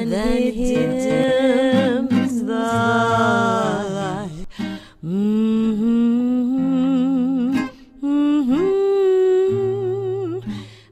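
Background music: a slow ballad in which a woman's voice hums a wordless melody in three long phrases, holding notes with vibrato, over soft guitar accompaniment.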